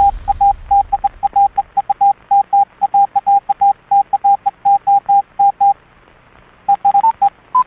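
Morse code (CW) on an amateur radio: a single steady tone keyed on and off rapidly in dots and dashes over a faint background hiss. It pauses for about a second, then a few more characters follow, the last ones a little higher in pitch.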